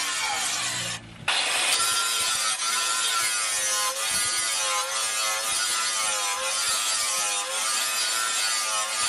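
Angle grinder's abrasive disc grinding a steel knife blade. A steady grinding hiss carries a whine whose pitch wavers as the disc is pressed and eased on the steel. The sound drops out briefly about a second in.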